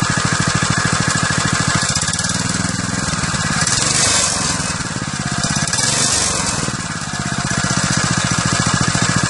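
Minibike's single-cylinder four-stroke engine idling with a rapid, even putter. It is revved up twice, peaking about four and six seconds in, then drops back to idle near the seven-second mark.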